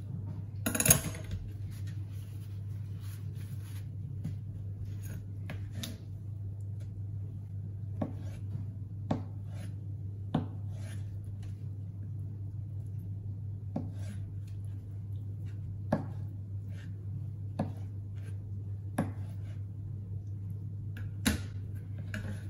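Chef's knife cutting tofu into cubes on a plastic cutting board: scattered sharp knocks of the blade meeting the board, one every second or two, the loudest about a second in, over a steady low hum.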